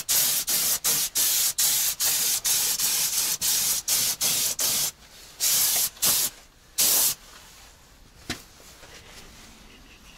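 Pressurised spray hissing from a hand-held nozzle in a rapid string of short bursts, about three a second, for the first five seconds. Two longer blasts follow, about five and a half and seven seconds in, and then the hissing stops.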